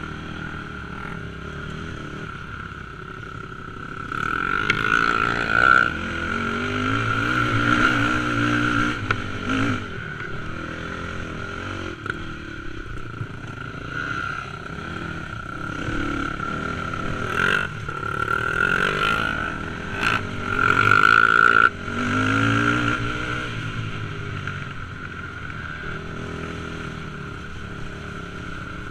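Dirt bike engine running as the bike is ridden over a rough, wet trail, opening up in two rising surges of revs about six seconds in and again past twenty seconds, with a steady high whine underneath. A couple of sharp knocks come from the bike striking bumps.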